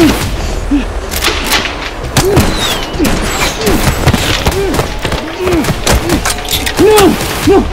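Men repeatedly shouting short 'Hey!' calls over a busy run of knocks and thuds, with a steady low rumble underneath.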